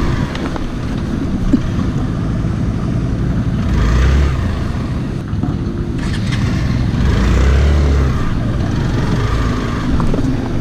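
Motorcycle engine running at low speed as the bike crawls over a rutted mud track, with heavier low buffeting on the microphone about four seconds in and again around seven to eight seconds in.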